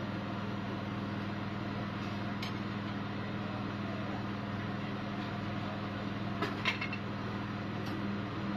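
A steady low machine hum with a few short metallic clicks, one about two and a half seconds in and two close together a little after six seconds.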